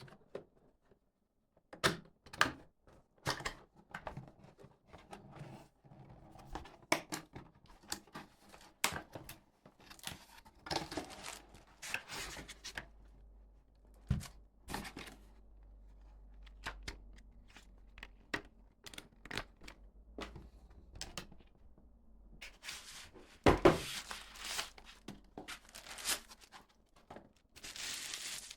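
Soundbar being unboxed by hand: a cardboard box opened and its packaging handled, with scattered taps and knocks and stretches of tearing and rustling. One louder knock comes about two-thirds of the way through.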